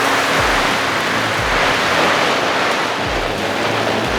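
Water from an ATS 2000 pneumatic submersible pump's discharge pouring down like heavy rain: a loud, steady hiss of spray and splashing, with a faint low hum underneath.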